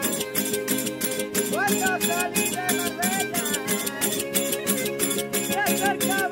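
Verdiales folk band playing: strummed guitars and a sliding violin melody over a steady beat of jingling tambourine (pandero) and small brass hand cymbals, about four strokes a second.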